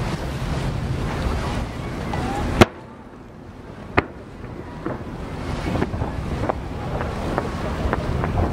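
Wind and water noise on a boat with a low engine hum, which stops abruptly after a sharp crack about two and a half seconds in. Then a sharp firework bang about four seconds in, followed by fainter, scattered firework pops.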